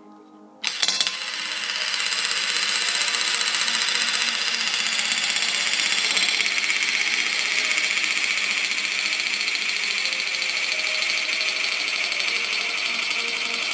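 Hurricane balls, two small balls glued together, spinning fast on a hard surface: a steady whirring rattle that starts abruptly about half a second in and keeps going.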